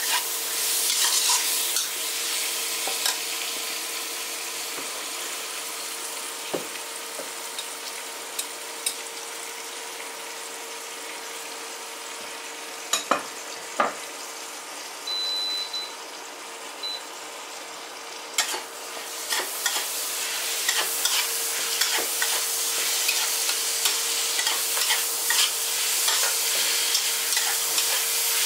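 Stir-frying winter bamboo shoots with cured pork: a steady sizzle in hot oil, broken by a few sharp knocks of the spatula against the pan. The sizzle dies down through the middle and grows louder again from about two-thirds of the way in, over a faint steady hum.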